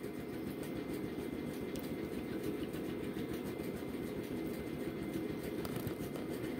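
Steady, rapid mechanical rumble from a premature baby's breathing-support equipment in a neonatal incubator.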